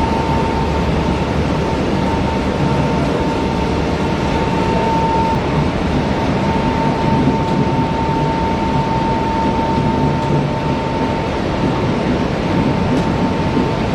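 Ball mill running on test: a steady, loud mechanical rumble of the rotating drum with a constant high whine that fades near the end.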